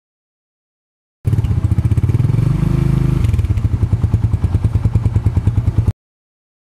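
Small two-wheeler engine running with a fast, even putter, swelling briefly about two seconds in; the sound starts and cuts off abruptly.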